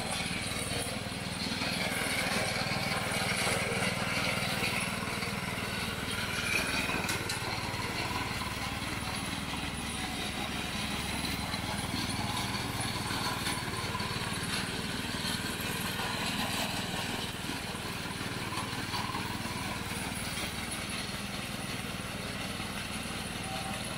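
Small Briggs & Stratton engine on a homemade walk-behind lawnmower, running steadily as it is pushed across the grass mowing.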